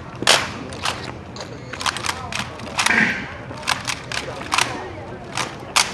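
Rifle drill by an honor guard squad: a quick, irregular series of sharp claps and knocks from hands slapping rifles and boots stamping, with a short shout about three seconds in, over crowd murmur.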